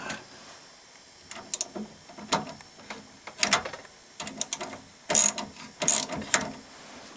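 Socket ratchet clicking in short, irregular bursts as it is worked back and forth on a hose clamp's screw, checking that the clamp is tight.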